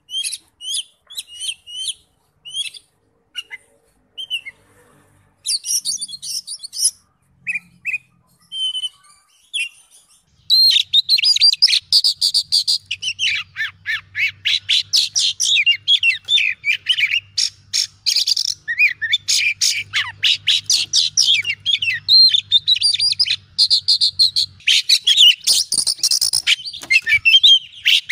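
Oriental magpie-robin singing: scattered short whistled notes for about ten seconds, then a fast, continuous run of varied, rapidly changing notes.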